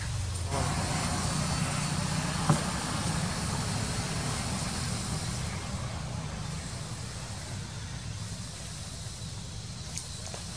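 Steady outdoor background noise, a low hum under a hiss, with a single sharp click about two and a half seconds in.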